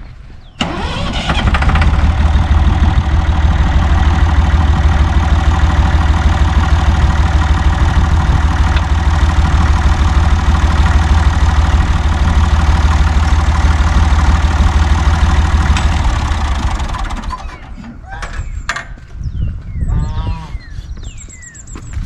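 Farm tractor engine starting less than a second in, running steadily with a deep, even beat, then shutting off about 17 seconds in.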